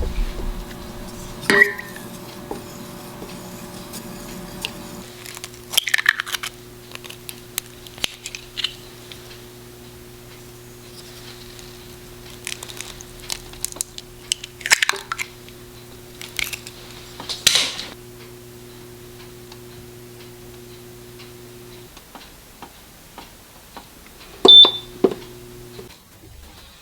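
Kitchen utensils and dishes clinking, scraping and clattering, with a sharp ringing clink near the end, over a steady low appliance hum that stops a few seconds before the end.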